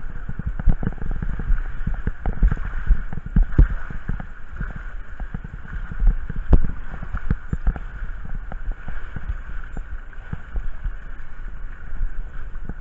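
Water rushing down a fibreglass body slide as a rider slides through it without a ring, with frequent low thumps and knocks.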